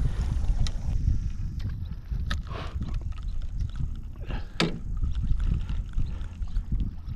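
Low, uneven rumble of wind and water around a small boat on open water, with a few scattered sharp ticks and knocks.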